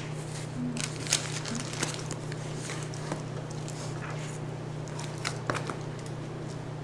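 Paper books and folders being handled on a table: pages and covers rustling, with scattered sharp taps and clicks over a steady low hum.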